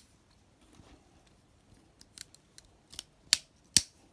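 Folding metal multitools being opened out: several sharp metal clicks and snaps of handles and jaws swinging open, spaced out over the second half, the last two loudest.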